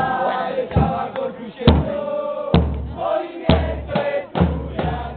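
Music with a heavy drum hit roughly every second and a wavering voice-like melody over it; a deep bass line comes in about halfway through.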